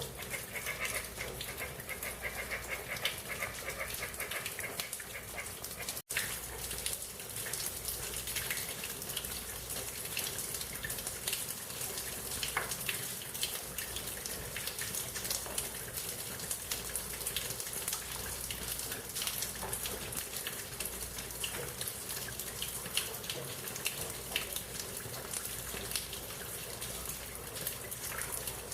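Rain falling on leaves: a steady hiss with a dense, irregular patter of individual drops. The sound cuts out for an instant about six seconds in.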